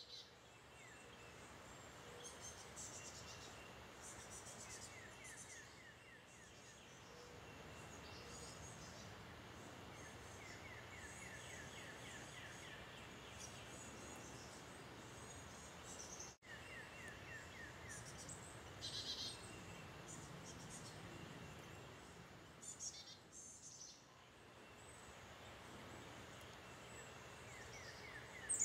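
Faint outdoor ambience: a steady hiss with birds calling now and then, including several short trills of quick repeated notes and a few higher chirps.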